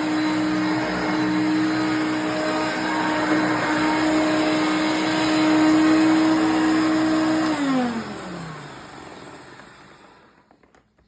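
1988 Hoover Concept One upright vacuum cleaner running steadily, then switched off about seven and a half seconds in, its motor whine falling in pitch as it spins down and fades out.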